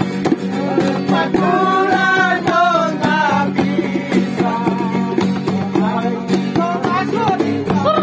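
A group of men singing together, accompanied by several strummed acoustic guitars.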